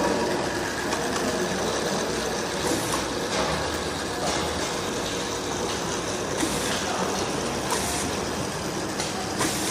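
Cosmetic jar capping machine running steadily, with a few short hisses breaking in now and then.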